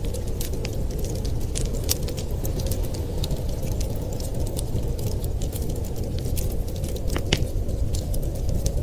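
Wood fire crackling in a fireplace: scattered sharp pops and snaps, one louder crack about seven seconds in, over a steady low rumble.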